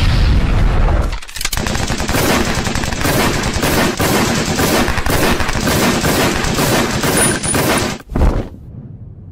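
Gunfire sound effect: pistols and automatic rifles firing in rapid, continuous volleys for about six seconds, after a loud low burst in the first second. It ends in a single hit just after eight seconds in, followed by quieter sound.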